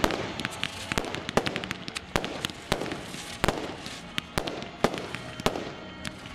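Aerial fireworks going off in quick succession: sharp bangs about two a second, with many smaller cracks between them over a crackling hiss, as comet-tailed shots rise and burst.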